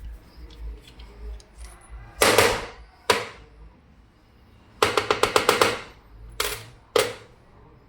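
Sharp metal knocks on a diesel common-rail injector clamped in a vise, struck to free its cap nut for opening: two single blows, then a rapid run of about eight quick blows, then two more.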